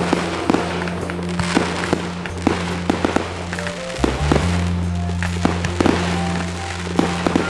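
Fireworks going off in quick succession, many sharp bangs and pops close together, over steady instrumental music.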